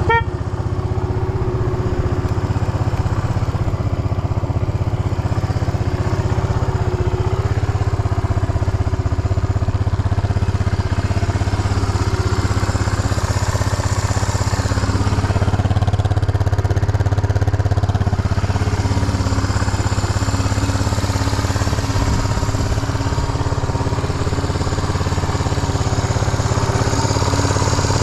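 Suzuki Goose 350's single-cylinder four-stroke engine running steadily at an even speed, with no rise or fall in revs. The seller presents it as running with no abnormal noises.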